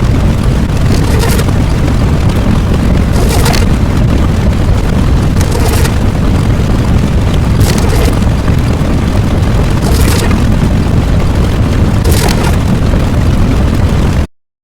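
A loud, continuous deep rumble, with a short crackling burst about every two seconds, that cuts off suddenly near the end.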